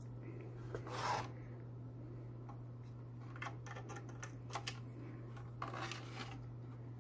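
Handling noise as a plastic DVI-to-VGA adapter is fitted onto the DVI port of a graphics card's metal bracket. A rubbing scrape comes about a second in, a run of small clicks and knocks follows in the middle, and there is another rub near the end.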